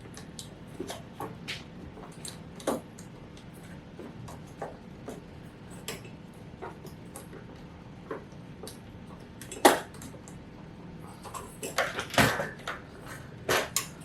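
Light plastic clicks and taps from UV fluorescent tubes being handled and twisted in the sockets of a bug zapper, with a few louder knocks near the end.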